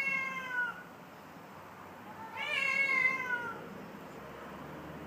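Tomcat yowling in a territorial standoff: a long drawn-out yowl trails off just under a second in, and a second one of about a second and a half comes about two seconds in.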